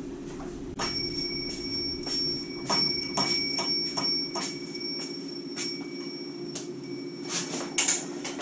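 Desktop PC cooling fan running noisily: a steady low drone with an irregular ticking rattle and a thin high whine over it, the fan noise that brought the PC in for repair.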